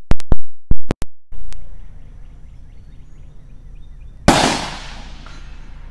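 A quick string of pistol shots from a Beretta tip-up-barrel semi-automatic pistol in the first second and a half, then a single further bang about four seconds in that fades out over about a second.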